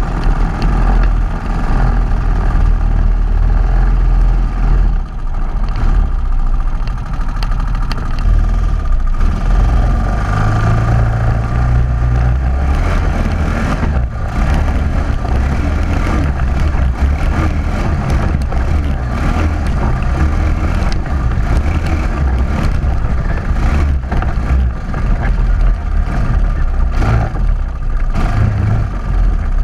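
ATV engine running while the quad rides over rocky dirt trail, with a heavy low rumble and scattered knocks as the tyres and suspension jolt over rock.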